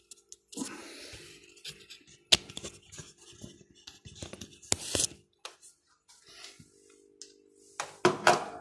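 Handling noise: irregular scratching and rustling with sharp clicks and a few louder knocks, loudest about two and five seconds in. A low steady hum comes in for the last couple of seconds.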